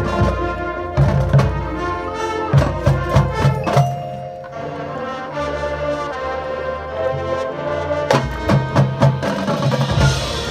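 Marching band playing: sustained brass chords punctuated by clusters of sharp percussion hits about a second in, around three seconds in, and again near eight seconds.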